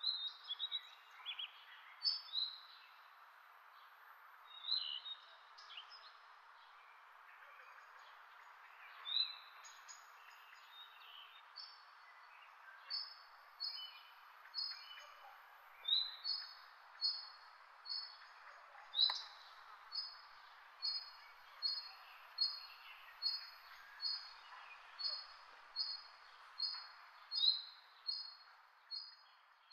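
Birdsong: a bird repeating one short, high, two-part chirp at an even pace of a little more than one a second, after a first stretch of more varied calls. A steady soft hiss runs underneath.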